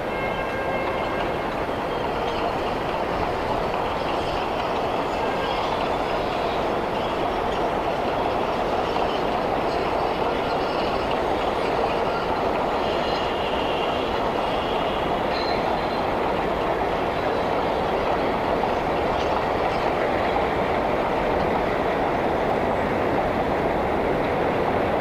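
A New York subway #7 train running on the elevated steel structure: a steady rumble that grows slightly louder, with a few brief faint wheel squeals.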